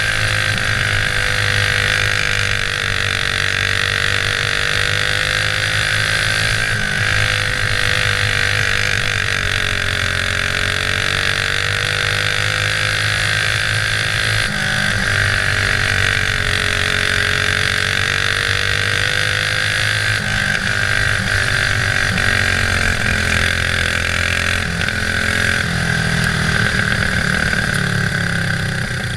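Racing go-kart engine running hard on a lap of a dirt oval, heard close up from the kart itself; its pitch sags and climbs again several times as the kart lifts for the turns and accelerates down the straights.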